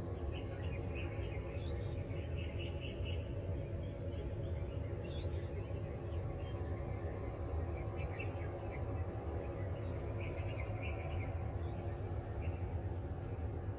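Small birds chirping in short clusters every few seconds over a steady low rumble of ambient outdoor noise.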